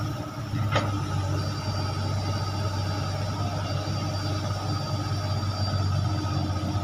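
Komatsu long-reach excavator's diesel engine running steadily while the boom and bucket move, with a single short knock about a second in.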